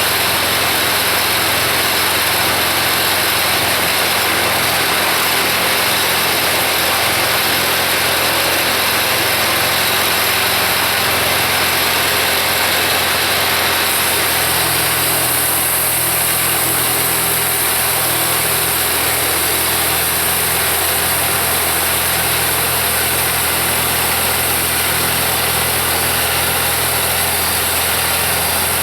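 Kubota V1305 four-cylinder diesel on a sawmill, running steadily. Its note changes about halfway through and then holds steady again.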